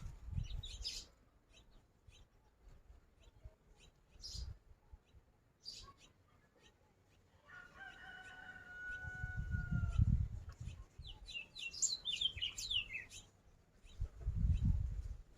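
A rooster crowing once in one long call about halfway through, followed by small birds chirping in quick high falling notes. A few low rumbles come and go.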